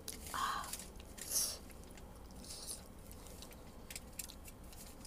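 Someone eating spicy seafood instant cup noodles: a few short slurps in the first three seconds, then quieter chewing with small wet mouth clicks.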